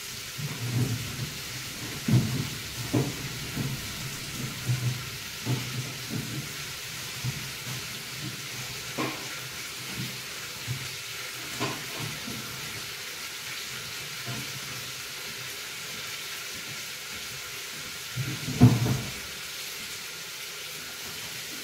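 Steady sizzling hiss of food frying in a steel pot on a lit gas burner. Scattered faint knocks are heard over it, with one louder thud near the end.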